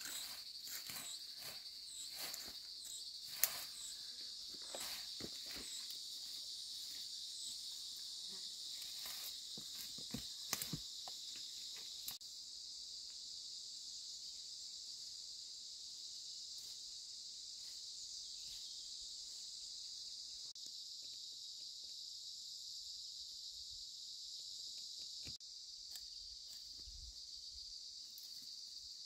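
Steady high-pitched chorus of insects, with rustling and snapping of dry weeds and brush being pulled up by hand during roughly the first twelve seconds.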